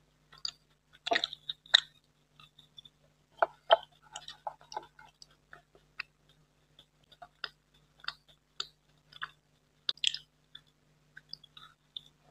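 Close-miked chewing of Indian sweets: irregular sharp mouth clicks and smacks, loudest about a second in and again around ten seconds in.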